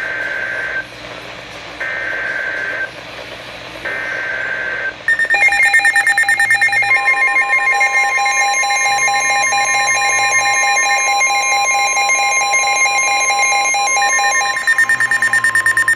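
Emergency Alert System header for a severe thunderstorm warning on NOAA Weather Radio: three one-second bursts of screeching SAME data tones, then a rapidly pulsing electronic alarm beep joined about two seconds later by the steady, high warning alarm tone near 1 kHz.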